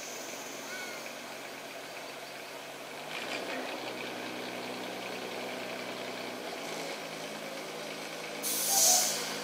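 Diesel engine of a loaded log truck running at low revs, its pitch stepping up about three seconds in and again around seven seconds. Near the end comes a short, loud hiss of air from the truck's air brakes.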